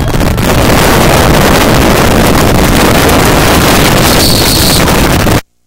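Loud, steady rushing noise, overloading the recording and spread evenly across all pitches, that cuts off abruptly about five seconds in.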